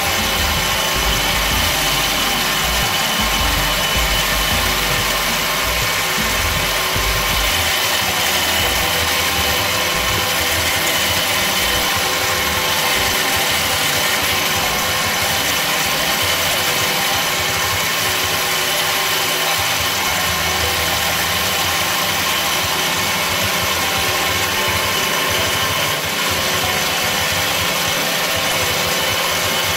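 Small benchtop metal lathe running steadily while a metal part is turned, a continuous motor and gear whine with a low hum that drops away about seven seconds in.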